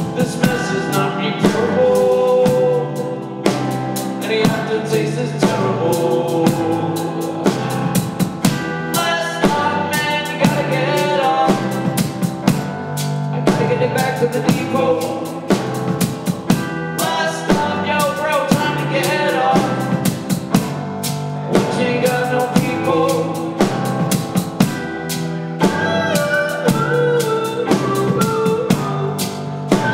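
Live band music: a drum kit played with sticks, with frequent snare and rimshot hits and bass drum, under an electronic keyboard, in an instrumental passage with no words sung.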